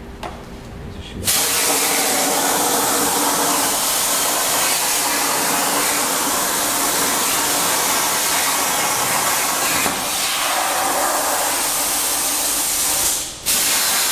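Plasma arc of a Hypertherm Powermax 85 on a Koike ShopPro CNC plasma table cutting metal plate: a loud, steady hiss that starts suddenly about a second in. It cuts out for a moment near the end and fires again.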